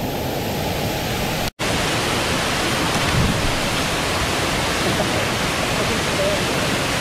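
Waterfall cascading into a pool: a steady rush of falling water. It cuts out for an instant about one and a half seconds in, then comes back brighter and fuller.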